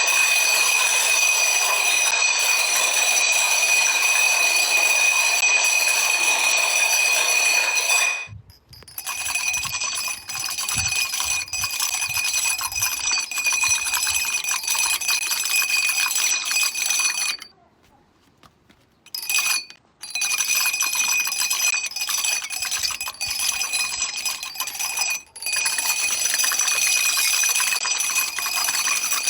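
Dominoes toppling in long chains, a dense continuous clatter of small clicks with a steady ringing tone over it. It breaks off briefly a few times, longest for about two seconds past the middle.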